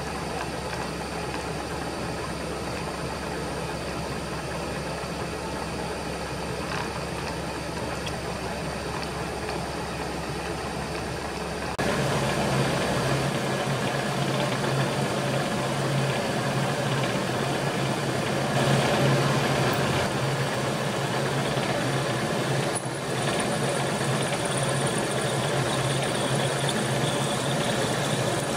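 Milling machine running as an end mill cuts a keyway in a metal mounting foot. About twelve seconds in it changes suddenly to a louder, rougher run as a twist drill in the mill's drill chuck drills holes in the keyway for the key retaining screws.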